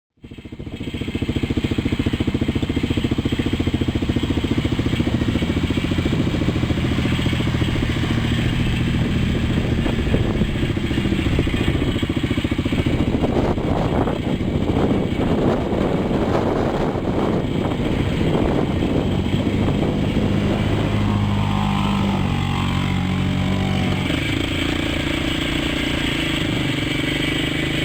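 Quad bike (ATV) engine running steadily while being ridden, its pitch shifting up and down as the throttle changes.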